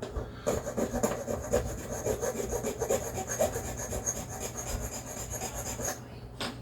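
A hand file rasping over the drilled-out rivet posts of a die-cast Hot Wheels Redline Custom Fleetside casting, in quick, even strokes that stop about six seconds in.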